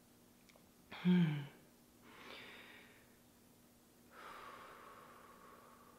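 A woman breathing slowly and audibly through her mouth: a brief voiced sound about a second in, a soft in-breath a little after two seconds, then a long out-breath from about four seconds in.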